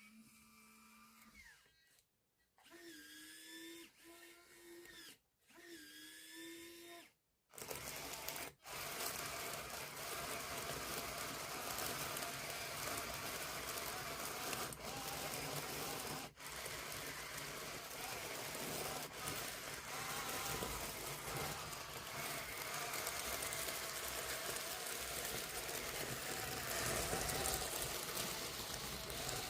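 Small electric gear motors of a 1:50 scale RC excavator whining in several short runs with pauses, then running on continuously with a louder, noisier sound for the rest of the time.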